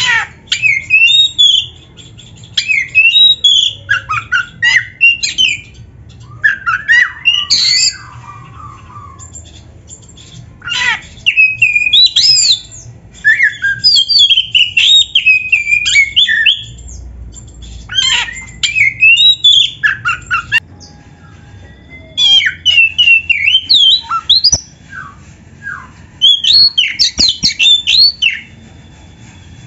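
Oriental magpie-robin (kacer) singing in repeated phrases of rapid, quickly changing whistles and harsh notes, each phrase one to three seconds long with short pauses between.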